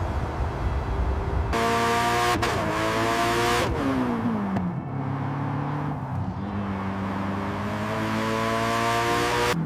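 Pagani Huayra's V12 engine under acceleration. A low rumble at first gives way about one and a half seconds in to a rising engine note, which drops steeply around four seconds in and then climbs steadily again.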